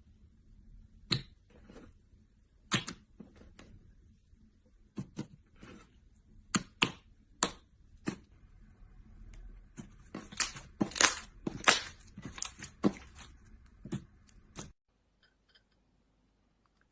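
Slime being pressed and worked by hand, giving irregular sharp pops and crackles that come thick and fast near the end before stopping suddenly.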